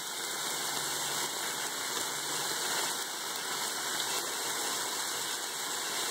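Stir-fry of fish, cabbage and peppers sizzling steadily in a frying pan over raised heat, the moisture given off by the vegetables hissing in the hot oil.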